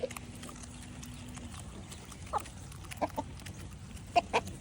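Chickens clucking: a few short clucks about halfway through, then a louder pair near the end.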